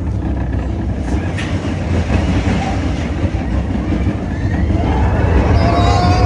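Expedition Everest roller coaster train running on its track, heard from a seat on board: a loud, steady rumble that grows louder over the last few seconds.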